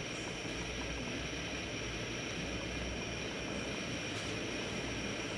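Hurricane rain and wind heard from indoors as a steady rushing noise with a low rumble underneath.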